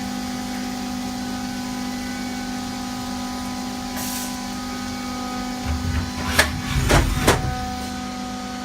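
Haas SL-20T CNC lathe running under power: a steady mechanical hum with several steady tones. About six seconds in comes a brief spell of low rumbling and three sharp knocks or clunks from the machine.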